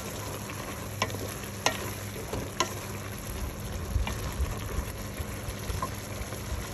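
Shrimp, sliced meat and onion sizzling as they are sautéed in a metal pot, the base for a mung bean stew, stirred with a wooden spatula that knocks against the pot several times.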